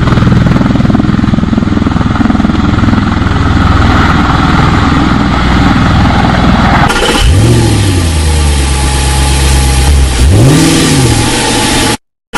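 Vehicle engine sound effect laid over a hand-pushed plastic toy: a steady low engine rumble, which about seven seconds in changes to an engine revving up and back down twice. It cuts off abruptly just before the end.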